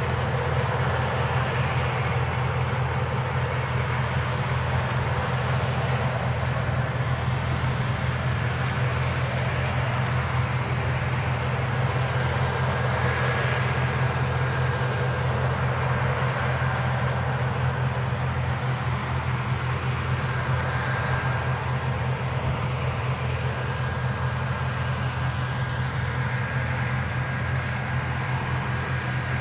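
Palesse GS12 combine harvester running steadily as it harvests, a constant low drone. Over it, crickets chirp without pause in a steady high tone.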